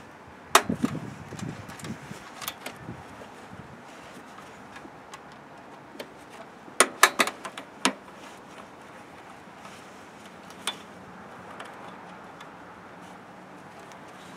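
Scattered sharp clicks and light metal clatter as throttle cable ends are snapped onto the linkage of a Jeep 4.0's throttle body. Several clicks come close together about seven seconds in.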